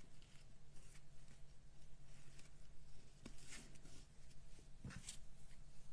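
Faint rustling and a few light crinkles of hands tying a thin ribbon bow on a paper card, over a steady low hum.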